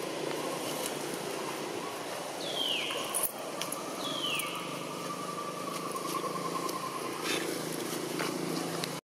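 Two short high-pitched animal calls falling in pitch, about a second and a half apart, over steady outdoor background noise with a faint wavering trill and a few light clicks.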